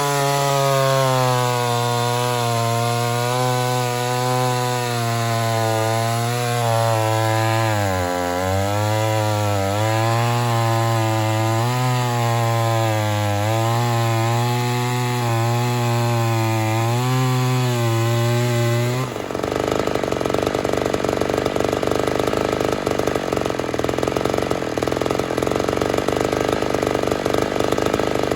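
Ported Poulan 245A two-stroke chainsaw running hard in a cut, its engine note wavering and dipping as the load changes. About two-thirds of the way in, the sound changes abruptly to a rough, noisy rasp with no clear pitch.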